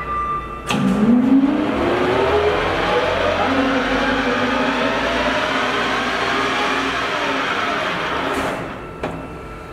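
Birmingham 16" x 40" gap-bed engine lathe's spindle starting with a click about a second in and whining up to speed, then running with a steady geared whine. Near the end it spins down, with a sharp click as it stops.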